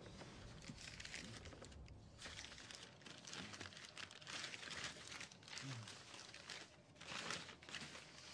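Faint rustling and crinkling of newspaper and paper wrapping as hands unwrap a parcel, in a series of irregular rustles that are loudest near the end.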